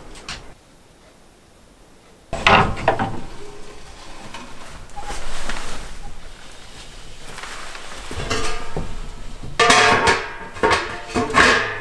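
Metal clanks and wooden knocks at a cast-iron wood stove as it is loaded with kindling and its door and parts are handled. The loudest, ringing clangs come near the end.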